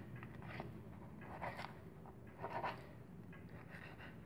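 Knife blade slicing along the bones of a pejerrey (Argentine silverside) to lift the back fillet: a few faint, irregular scraping strokes.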